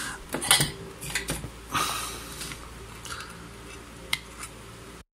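Small clicks and taps as copper desoldering braid and a soldering iron tip are worked onto a circuit board's pins, over a steady fan hum. The sound cuts off abruptly just before the end.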